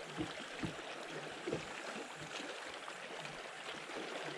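Steady rush of wind and small waves around a bass boat, with a few soft low knocks of water slapping the hull.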